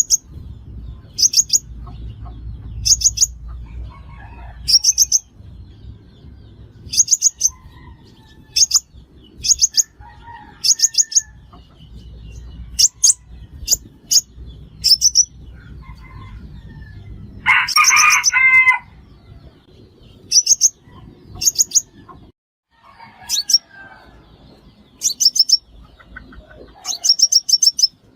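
Sunbird song: short, high-pitched trills of several rapid notes, repeated every second or two, used as a call to lure sunbirds to a trap. A rooster crows once about two-thirds of the way through.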